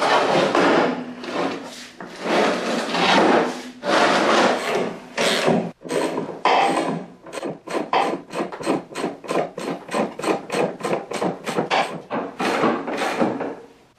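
Repeated rubbing or scraping strokes on a hard surface. They are long and uneven at first, then quicken about halfway through to a steady three or four strokes a second, and stop just before the end.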